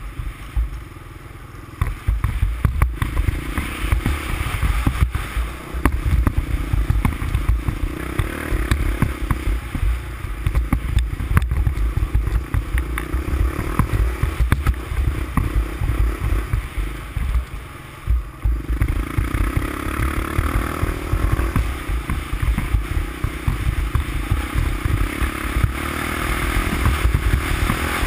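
350X ATV engine running under throttle, heard from the handlebars with heavy low rumble and the rattle of the machine over rough ground. It picks up about two seconds in, eases off briefly a little past halfway, then pulls again.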